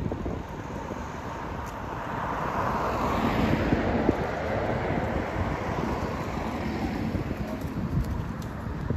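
Wind buffeting the microphone with a steady low rumble, while a broad rushing sound swells over a few seconds and fades away.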